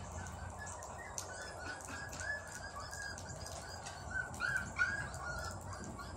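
Young beagle puppies, about five and a half weeks old, whimpering in a string of short high squeaks, with scattered light clicks.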